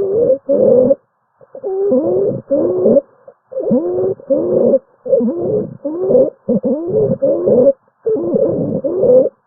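Recorded lung sounds: a quick run of about a dozen short breaths, each carrying a musical tone that bends in pitch.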